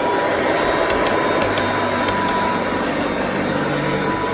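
Kirby D50 upright vacuum cleaner running steadily at full speed, a loud even rush of air with a steady high whine from the motor and fan. The motor, fitted with a new front bearing, sounds normal.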